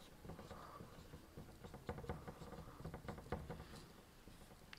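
Marker writing on a whiteboard: faint, irregular taps and scratches of the tip as letters are written.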